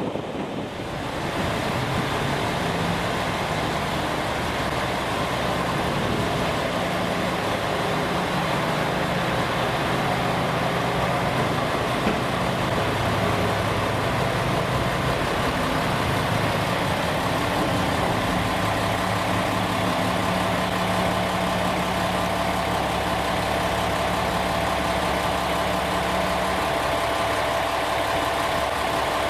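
Diesel railcar engine running steadily at idle with a low, even hum; its note shifts slightly about halfway through.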